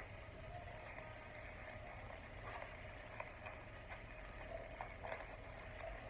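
Faint crinkling and soft ticks of a crumpled plastic bag being handled and wrapped with Scotch tape, over a low steady hum.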